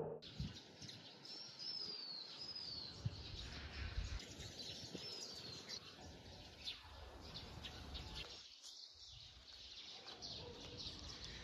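Birds calling over faint outdoor background noise: a few short, high, downward-sliding whistles, some about two seconds in and again a few seconds later.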